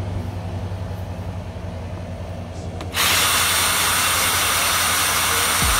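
Power drill turning a receiver lapping tool against the face of an AR-15 upper receiver. A steady low hum jumps suddenly, about three seconds in, to a much louder, steady whir.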